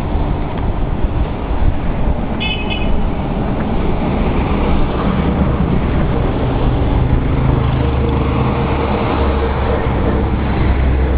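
Motor vehicle running with a steady low rumble, and a short horn toot about two and a half seconds in.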